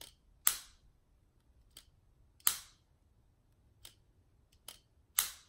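Apple AirPods charging case lid being flipped open and snapped shut, three times: a sharp click each time it closes, with fainter clicks in between.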